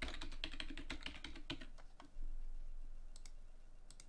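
Rapid typing on a computer keyboard, a quick run of keystrokes lasting about a second and a half as a password is entered, then two lone clicks near the end.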